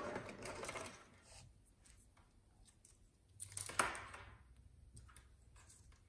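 Rustling and scraping of bundled power-supply cables being handled and pulled, with a louder scrape a little past the middle and a few small clicks near the end.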